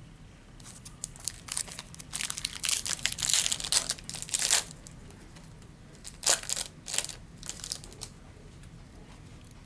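Crinkling and tearing of a trading-card pack's plastic wrapper being opened and handled, in two bouts of crackling: a longer one in the first half and a shorter one about six seconds in.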